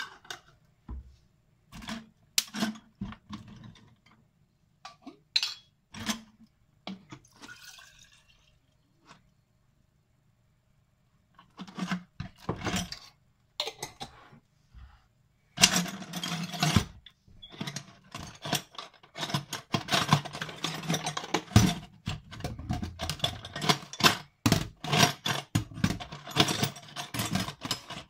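Steel auger bits clinking and scraping against a plastic bottle and a stainless-steel sink as they are tipped out of their vinegar soak, with liquid splashing. Scattered clicks at first, then a dense clatter through the second half.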